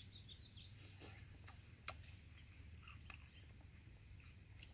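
Near silence: faint outdoor ambience with small birds chirping and a few faint clicks.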